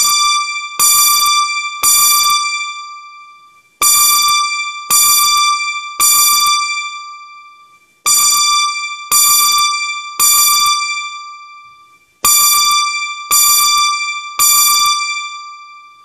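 Electronic keyboard played through its own speaker, sounding a loud fire-alarm-style chime. One high, bell-like tone is struck three times in quick succession, each strike ringing out and fading, and the group of three repeats about every four seconds, four times over.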